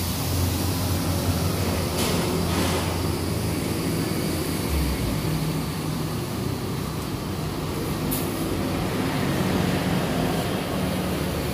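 Nitrogen tyre-inflation machine at work: a steady motor hum that stops with a soft thud about five seconds in, with short hisses about two seconds and eight seconds in, over a steady background rumble.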